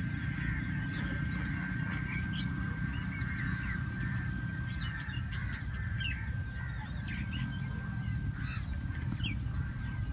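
Many birds calling and chirping in short scattered notes, over a steady low rumble and a thin steady whistle.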